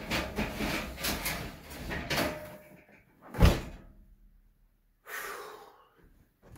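Scuffing and rustling of a removed window air-conditioner unit being handled and carried. About three and a half seconds in there is a single heavy thump, the loudest sound, and a shorter rustle follows about five seconds in.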